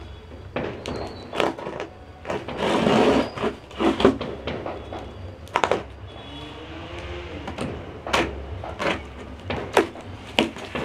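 Cardboard box being opened by hand: a small pointed tool scrapes and picks at the packing tape on the top flap, with one longer rasping scrape about two to three seconds in and scattered taps and knocks against the cardboard.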